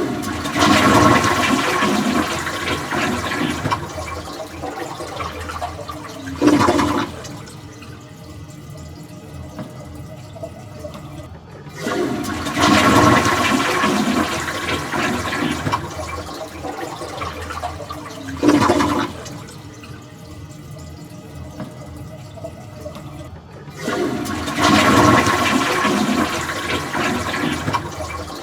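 Toilet flushing three times in a row, about twelve seconds apart. Each flush starts with a loud rush of water, gives a short surge about six seconds in, then drops to quieter running water that stops suddenly.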